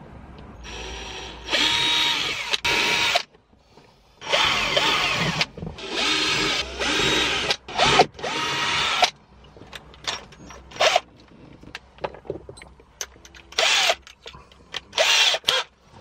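Cordless drill boring holes into a car's plastic centre console in a series of short bursts, each one to two seconds long, the motor pitch rising and falling as the trigger is worked. Light clicks and two brief final bursts come near the end.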